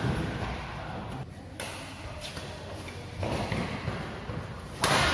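Badminton rackets hitting a shuttlecock during a doubles rally: a few sharp smacks, the loudest near the end.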